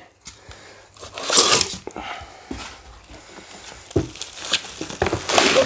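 Bubble wrap rustling and crinkling in bursts as a bubble-wrapped unit is gripped and pulled loose from a packed plastic crate, with a single knock about four seconds in.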